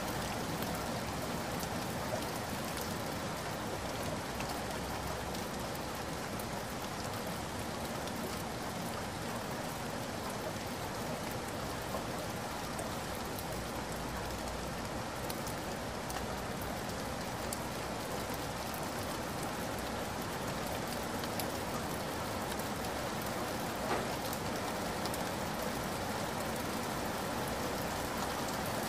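Shallow stream flowing over gravel: a steady, even trickling and splashing of running water.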